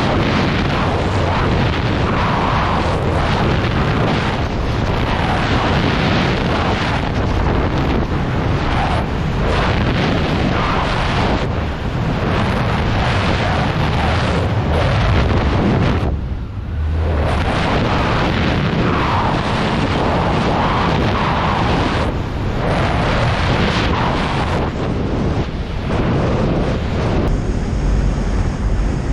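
Loud rushing wind buffeting the microphone during a skydive, a steady roar with a brief lull about sixteen seconds in.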